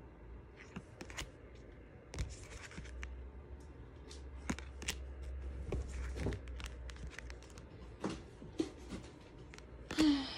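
Lo Scarabeo Radiant Wise Spirit tarot cards being flipped and slid off the deck one at a time: scattered sharp card snaps and light scraping of card stock against card, irregular and unhurried.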